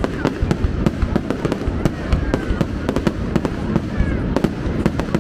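Aerial fireworks display, shells bursting in a rapid, irregular barrage of bangs and crackles over a steady low rumble.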